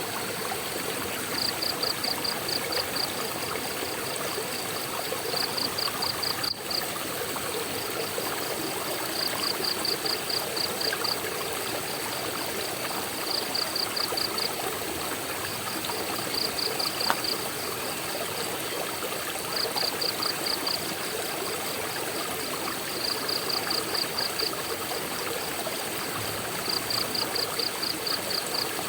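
Waterfall water rushing steadily. Every three to four seconds a short run of rapid high-pitched pulses rises above it, lasting a second or two each time.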